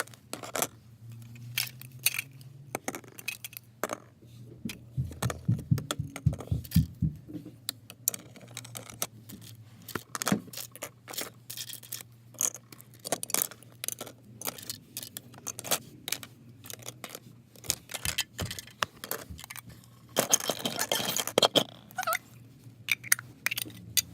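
Toy tea set pieces being set out: many small clicks and clatters as cups, saucers and teapot are handled and put down, with a run of low thumps about five to seven seconds in and a denser scraping rustle near the end, over a steady low hum.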